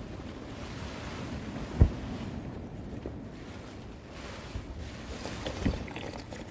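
Strong wind gusting against a tent: a steady rush, with two dull thumps about two seconds in and near the end.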